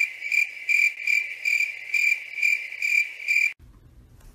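Cricket chirping, a high chirp repeated evenly about two and a half times a second, which cuts off abruptly about three and a half seconds in. A faint low room hum follows.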